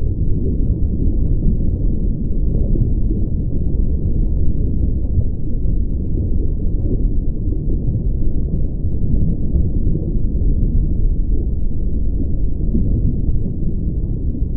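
Steady, muffled low rumbling noise with nothing in the upper range and no distinct tones or events.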